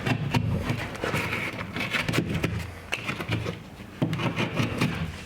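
Utility knife cutting away damaged drywall around a hole: irregular scraping of the blade through gypsum and paper, with small knocks as pieces break away.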